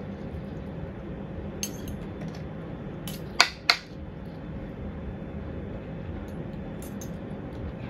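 Metal fork clinking against a plate and serving utensil: a few short sharp clinks, the two loudest close together about halfway through, over steady room noise.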